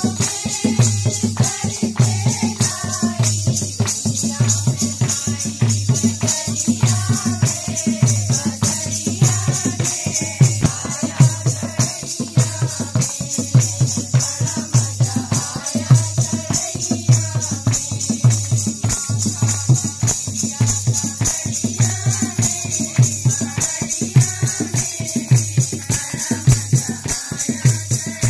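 A group of women singing together to a dholak drum's steady beat, with jingling chimta tongs and hand clapping.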